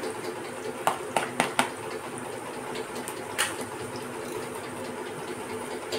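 A small kitchen knife cutting through a hard raw carrot onto a plastic plate: four sharp cuts close together about a second in, and one more a little past the middle. Under them, the steady sizzle of onions and mustard seeds frying in an aluminium kadhai.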